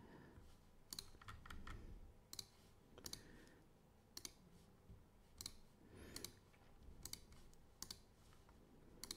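Faint computer mouse button clicks, about ten, some single and some in quick pairs, as items are picked from an on-screen drop-down list.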